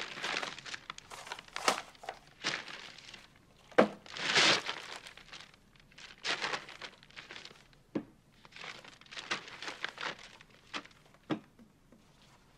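Brown paper lunch bag crinkling and rustling in short bursts as food is pulled out of it, with a few sharp knocks of items being set down on the table.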